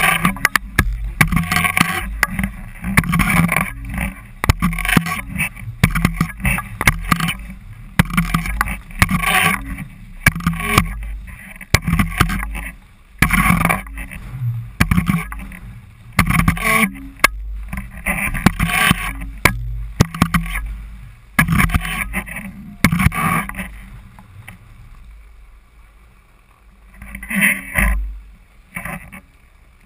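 Skis scraping and sliding over packed snow in repeated pushing strokes, roughly one a second, over a low rumble of wind on the microphone. The strokes die away near the end, with one last scrape as the skier stops.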